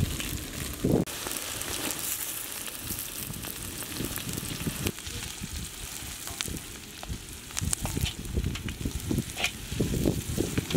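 Diced yellow bell pepper and onion sizzling in hot oil in a black kadai, stirred with a large perforated metal ladle that clicks and scrapes against the pan.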